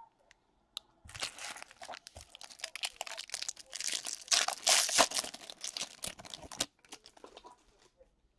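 Foil wrapper of a baseball card pack being torn open and crumpled: a dense crinkling and crackling that starts about a second in, is loudest past the middle, and stops abruptly a couple of seconds before the end.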